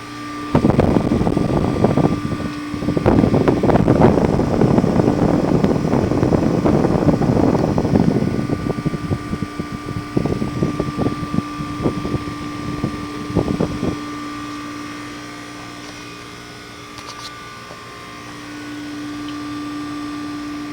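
Outdoor heat pump unit running in heat mode with a steady hum. A loud rushing, crackling noise starts about half a second in and fades into scattered bursts by about 14 seconds, then only the hum is left.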